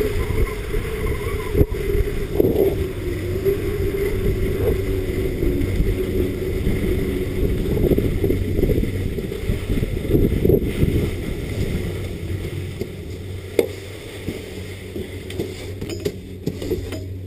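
Skis sliding and scraping over packed snow, with wind rushing over a helmet camera's microphone; the noise drops about three-quarters of the way through as the skier slows.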